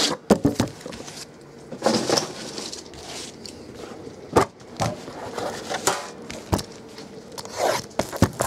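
Hands handling a cardboard box and a black trading-card tin on a tabletop: scattered knocks and clicks with brief rustling and scraping as the tin is taken out and set down.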